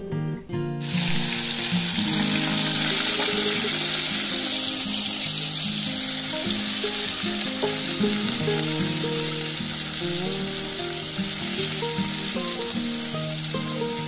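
Thin strips of potato sizzling as they fry in hot oil in a wok. The sizzle starts suddenly about a second in and then holds steady, with background music beneath it.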